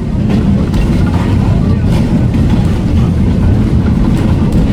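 Old-time passenger train rolling along, heard on board: a steady low rumble with faint clicks and rattles over it.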